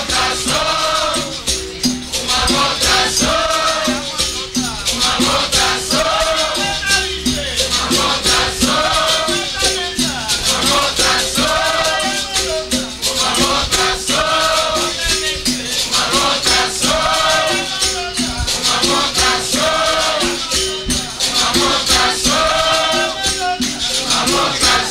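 Capoeira Angola roda music: berimbaus with caxixi shakers and a pandeiro playing an even, repeating rhythm, the berimbau notes swelling and fading in a wah-like sweep every second or so, with voices singing along.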